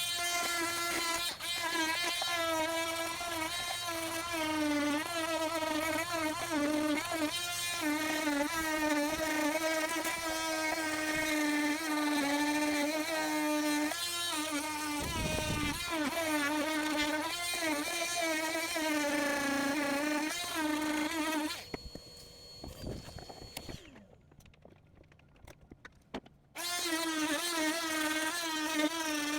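Oscillating multi-tool cutting back a fiberglass deck covering: a loud, high buzz whose pitch wavers as the blade bites. It stops for a few seconds about three-quarters of the way through, then starts again.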